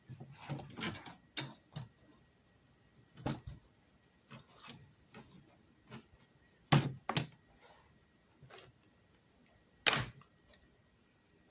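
Handling of a plastic iPad hard case and its strap pieces: rustling and light taps, then a few separate sharp clicks and knocks, the loudest two close together about seven seconds in.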